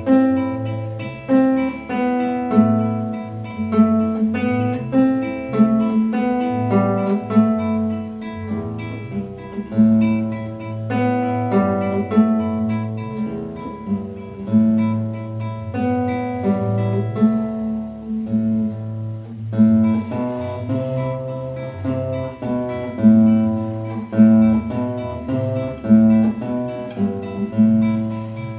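Solo acoustic guitar playing a classical piece: a plucked melody over a recurring bass note.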